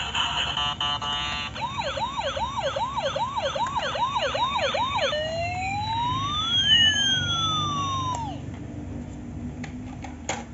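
Toy ambulance's electronic siren: the end of a short electronic tune, then a fast repeating yelp, about two and a half sweeps a second, then slower rising and falling siren tones that cut off about eight seconds in. A single click near the end.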